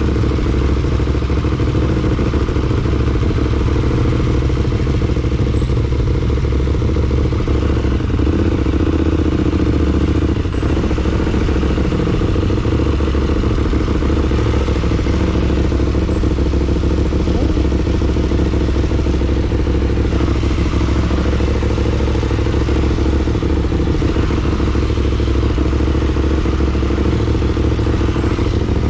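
KTM 890 Duke's parallel-twin engine running steadily at low revs under slow riding.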